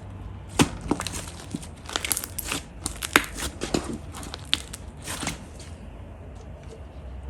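Slime being squeezed and stretched by hand, giving a run of sharp crackles and pops that die away after about five and a half seconds.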